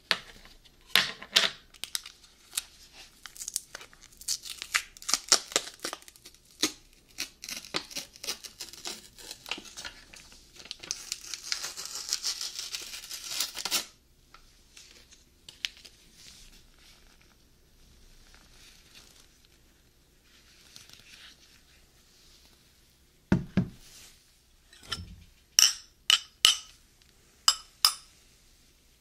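Peel-off seal on an ice cream pint crinkling and tearing as it is worked loose, ending in one long peel that cuts off suddenly. Later, a couple of dull knocks and then a quick series of sharp clinks as a glass bowl and metal spoon are handled.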